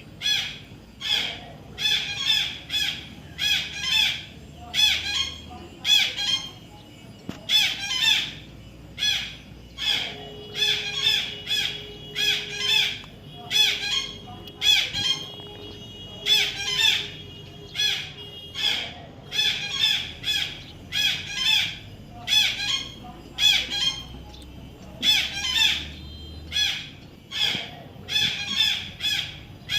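A baby parrot calling over and over in short, harsh, shrill notes, about one to two a second, with a few brief pauses.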